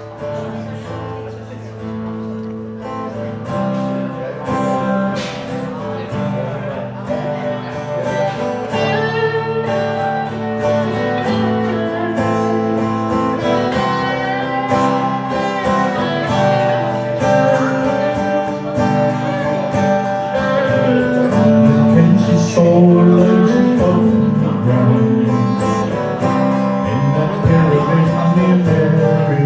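Live acoustic music: a strummed acoustic guitar with sustained accompanying tones, steadily growing louder.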